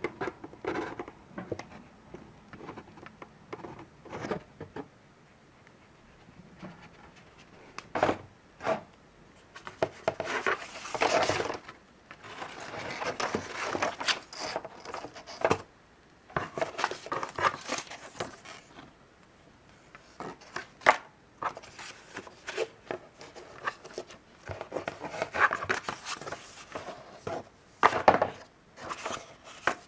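Paper booklets and leaflets rustling and sliding as they are handled inside a cardboard box, in irregular bursts with quiet gaps between them. A few short knocks against the cardboard come through.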